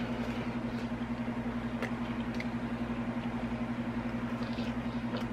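A steady low hum with a fast flutter, with a few faint, sharp mouth clicks from chewing pizza.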